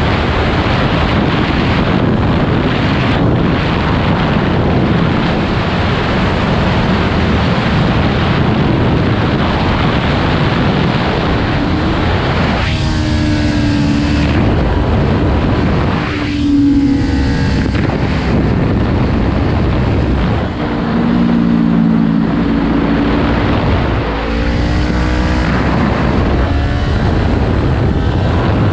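Heavy wind rush on the microphone at track speed, with the 2018 Kawasaki Ninja 400's parallel-twin engine and slip-on exhaust under it. In the second half the engine note comes through more clearly, rising in pitch several times as it is revved hard.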